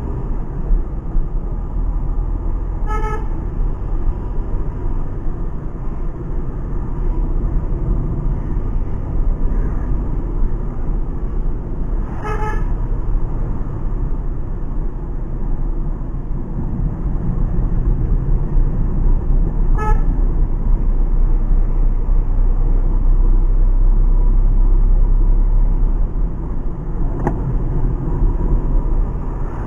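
Steady cabin rumble of a Renault Kwid 0.8 being driven, with its small three-cylinder engine and tyre noise on the road. A car horn gives three short single toots, several seconds apart.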